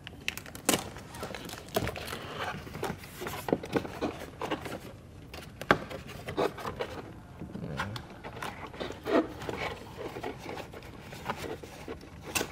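Stiff cardboard protective covers being handled and pulled away from a car door's interior panel: irregular rustles, scrapes and sharp taps of cardboard and tape.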